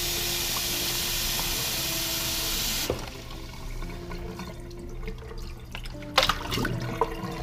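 Kitchen tap running water into a plastic container in a sink, shut off abruptly about three seconds in. Afterwards, quieter handling of the wet container, with a couple of sharp knocks about six seconds in.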